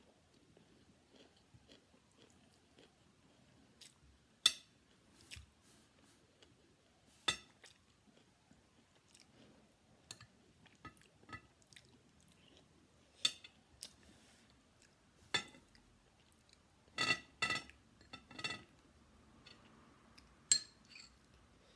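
Metal spoon clinking against a ceramic plate and bowl: about eight sharp ringing clinks spaced a few seconds apart, three in quick succession about three-quarters through, with soft chewing of fried rice between them.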